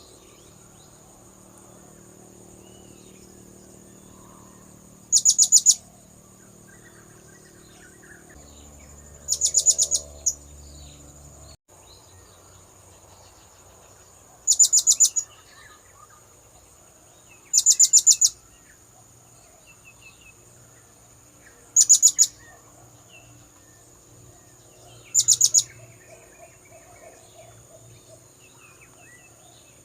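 Blue-crowned hanging parrot (serindit) calling: six short bursts of rapid, high-pitched notes, one every three to four seconds, over a steady thin high whine.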